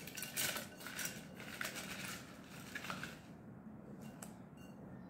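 A hand rummaging through folded paper slips and small pieces in a glass jar: papery rustling with a few sharp clicks. It dies down about three seconds in, with a faint click or two near the end.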